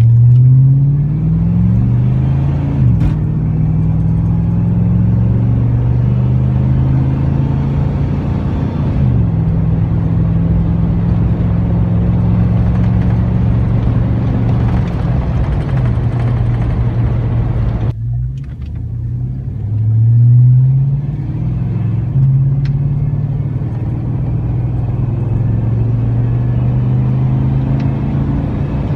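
A 1999 Chevrolet Silverado's 5.3L LM7 V8 through a Cherry Bomb muffler, heard from inside the cab as a steady drone. The engine pitch climbs under acceleration, with gear changes about three and nine seconds in, then holds steady while cruising. It cuts off suddenly near eighteen seconds, then rises through another pull and levels off again.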